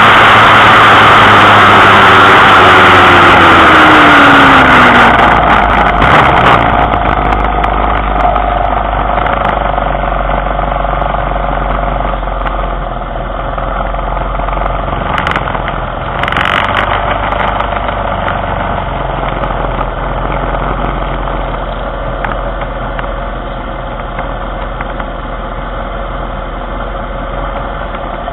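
A small vehicle's engine running loud with a rush of wind, then slowing down, its pitch falling over the first several seconds. It then settles to a steady idle.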